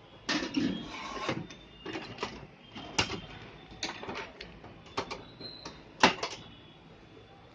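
Scattered plastic clicks and knocks from the casing of an HP LaserJet 1020 laser printer being handled as its top cartridge door is swung open. The sharpest knock comes about six seconds in.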